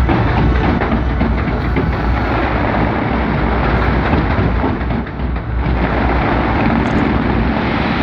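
Fireworks barrage: many shell bursts booming and crackling so closely together that they merge into a continuous loud rumble, easing briefly about five seconds in.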